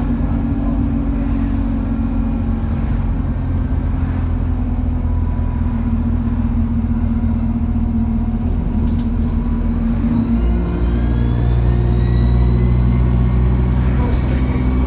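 Alexander Dennis Enviro200 bus's diesel engine running under way. About ten seconds in, the engine note steps up and a turbocharger whine starts, rising steadily in pitch as the bus accelerates.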